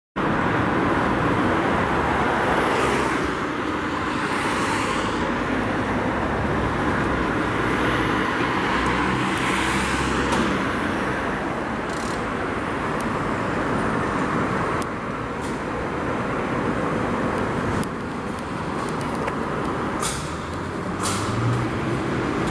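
Road traffic on a city street: a steady rush of tyres and engines as vehicles pass, swelling and easing, with a few short high hisses. A low engine hum starts near the end.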